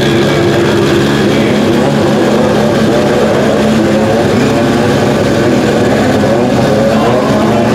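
Toyota Tacoma drag truck's swapped Supra inline-six engine idling loudly and steadily as the truck rolls slowly.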